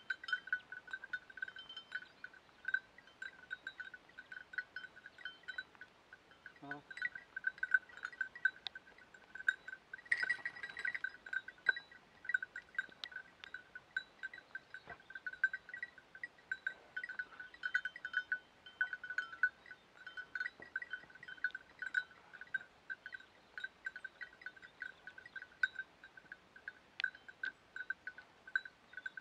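A small bell on a hunting dog's collar tinkling on and off as the dog moves, one bright ringing note jangling in uneven bursts.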